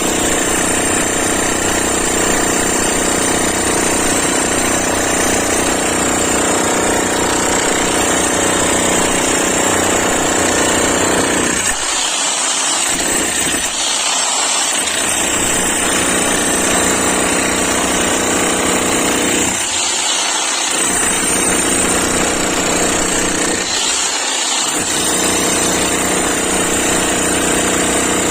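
11 kg electric demolition hammer running continuously, hammering into concrete or masonry. Its deep pounding drops out briefly a few times in the second half.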